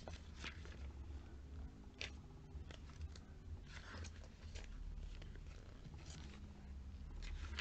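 Glossy catalogue pages being turned and handled by hand: a few brief, crisp paper rustles and flaps, irregularly spaced, over a faint low hum.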